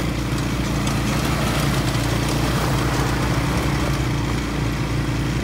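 ATV engine running steadily, with an even low hum under a rough hiss of noise.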